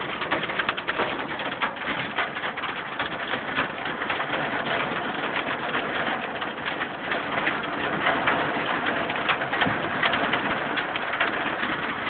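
Hailstorm: hail and heavy rain pelting down steadily, a dense, continuous patter of countless small impacts.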